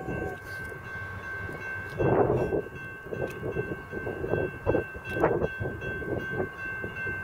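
A train passing at a distance: irregular clatter and knocks, the loudest about two seconds in, over a steady high ringing tone.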